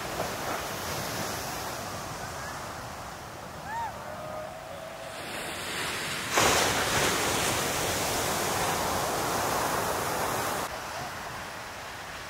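Heavy ocean surf breaking and rushing, with wind on the microphone. The wash is much louder for about four seconds in the middle, starting and stopping abruptly.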